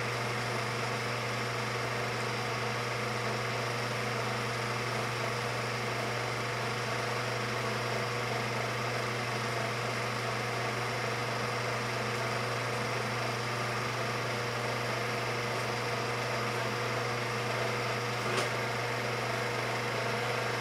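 Home-movie film projector running: a steady motor hum and whir with one faint click near the end.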